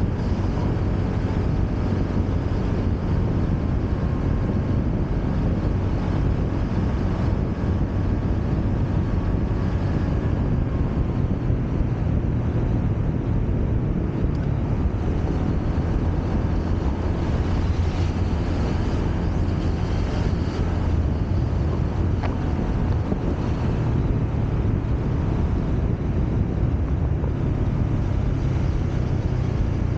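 Honda Click scooter's single-cylinder engine running steadily while riding at road speed, its pitch shifting slightly with the throttle, with wind noise on the microphone.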